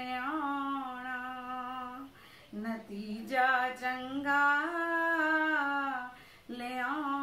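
A woman singing a Punjabi verse unaccompanied, drawing out long held notes in phrases, with short breaks about two and six seconds in.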